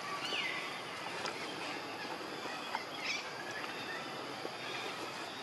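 Short high animal calls over a steady outdoor hiss: a squeak falling in pitch near the start, and a brief rising chirp about three seconds in.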